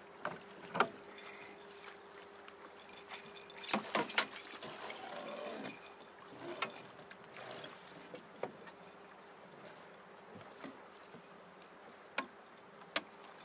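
Water sloshing and trickling against an aluminium boat, with scattered knocks and clunks of gear against the hull and a faint steady hum underneath.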